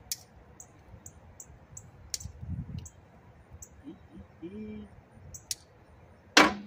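Scattered metal clicks and clinks of a hand tool working the battery cable terminals of a backhoe, with one much louder sharp clank near the end.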